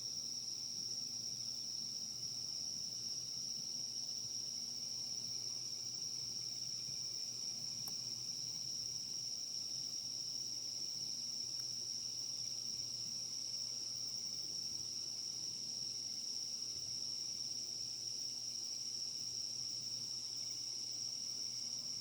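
Insects, taken for crickets, trilling in one continuous high-pitched unbroken tone, over a faint low hum, with a faint click about eight seconds in.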